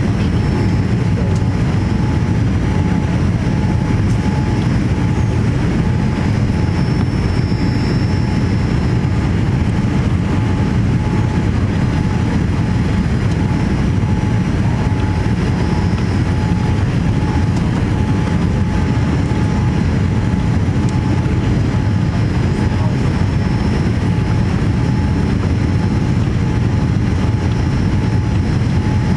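Steady cabin noise of a Boeing 787-8 airliner on approach, heard from a window seat: a constant deep rush of engine and airflow noise with a thin steady whine over it.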